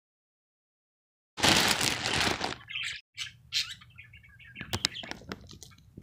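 A box of bird treats being opened by hand: after a silent start, a loud rustle and tear of packaging about a second and a half in, then quieter crinkling and clicking with a few short high chirps.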